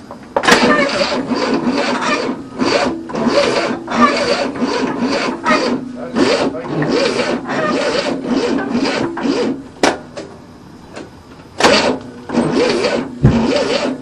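1967 Cadillac V8 being cranked over by its starter, a steady rhythmic chugging that runs for about nine seconds without catching, stops, then cranks again briefly near the end. The engine will not fire with the choke held open, and the men suspect it is flooded.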